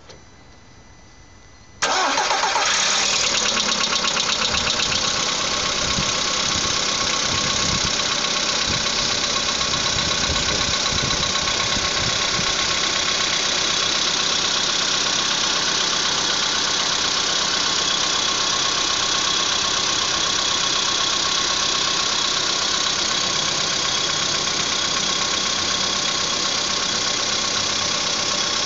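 Cold car engine, its pistons just replaced, starting about two seconds in and then running steadily at idle with a knock in it.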